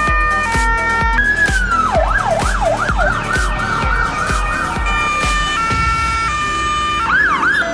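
Emergency vehicle sirens over a music track with a steady kick-drum beat. A two-tone siren alternates high and low about every half second, then about a second in it switches to a wailing sweep that speeds up into a fast yelp. The two-tone returns, and a short yelp comes near the end.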